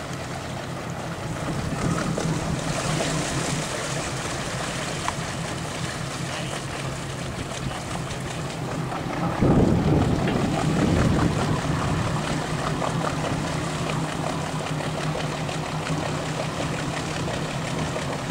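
Engine of a Downeast Northern Bay 36 flybridge cruiser running at low speed as the boat moves off across the harbour, a steady low hum over water noise. About halfway through, a louder rush comes in and the sound stays a little louder.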